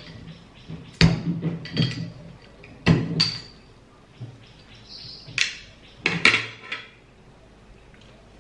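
A metal spoon prying and tapping at the metal crown cap of a glass milk bottle: about half a dozen sharp metallic clicks and knocks, spread over the first six seconds or so.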